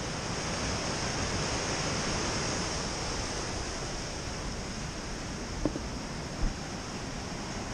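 Waves breaking and washing over shoreline rocks: a steady rushing surf that swells a little in the first few seconds. A brief knock about six and a half seconds in.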